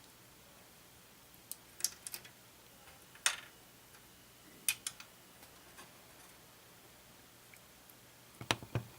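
Scattered light clicks and taps from small parts and tools being handled on a workbench. Near the end there is a short cluster of louder knocks, over a faint steady hum.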